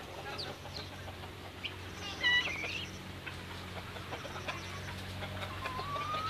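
Domestic fowl calling from a pen: scattered short calls, a louder high call about two seconds in and a rising call near the end, over a steady low hum.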